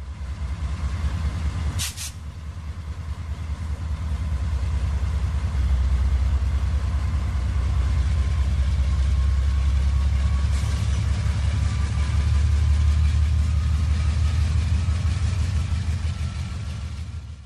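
HO-scale model freight train running along the layout track: a steady low rumble with a faint, slowly rising whine, and a single sharp click about two seconds in.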